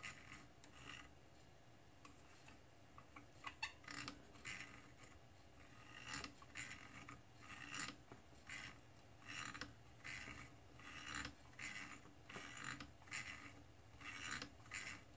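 Nylon zip tie being threaded and pulled tight around wiring inside a metal chassis: faint short scratchy pulls, a few clicks and then a fairly regular series about once a second.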